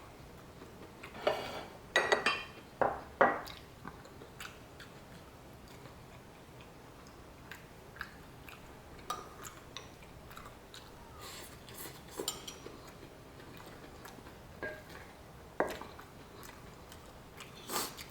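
A person eating at the table: utensils clicking against plates and bowls, with soft chewing between. The clicks are irregular, bunched in the first few seconds and again near the end.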